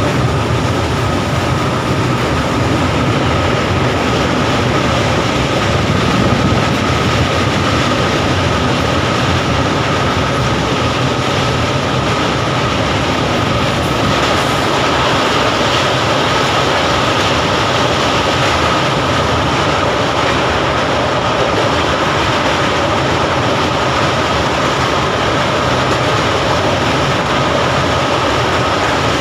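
Train running over a railway bridge: a steady, loud rumble of wheels on the rails, with a steady high whine above it.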